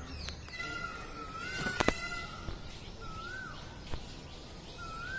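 A bird calling with a short whistled note that rises and falls, repeated every second and a half or so. Two sharp clicks sound close together about two seconds in, and a fainter one about four seconds in.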